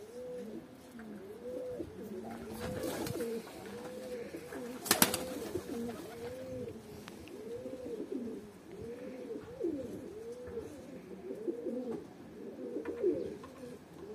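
Domestic pigeons cooing over and over, one coo overlapping the next. A single sharp knock about five seconds in is the loudest sound.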